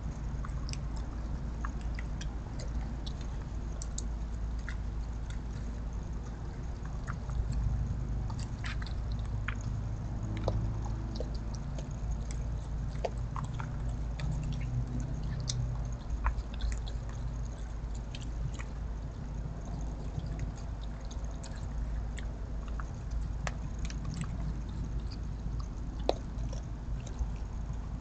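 A raccoon eating from food dishes on the ground: irregular small clicks and crunches of chewing and of the dishes being nosed, over a steady low hum.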